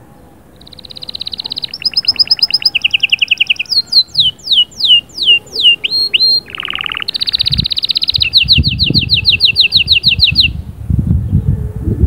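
Canary singing one long song phrase. It opens with rapid trills of repeated notes, then a run of falling whistled sweeps and a short lower buzzy stretch, and ends in a long fast trill that stops near the end. A low rumbling noise runs underneath in the second half.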